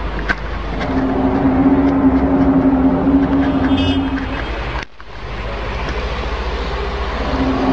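A steady, low droning hum over a heavy rumbling background, of the kind passed around as the unexplained 'strange sky sounds'. The hum stops, the sound cuts out briefly about five seconds in, and the hum returns near the end.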